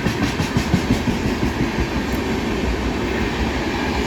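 Suburban local train running on the rails: a steady rumble, with wheels clattering over the track during the first second.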